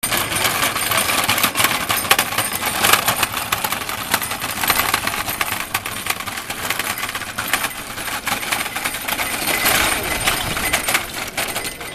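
Wooden pedal goat cart rolling over cobblestones, its spoked wooden wheels and frame giving a dense, uneven rattling clatter. The clatter eases off near the end.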